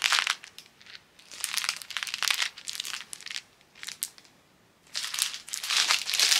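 A clear plastic bag crinkling in several bursts with short pauses as a plastic organiser box of rhinestone spacer beads inside it is handled and turned.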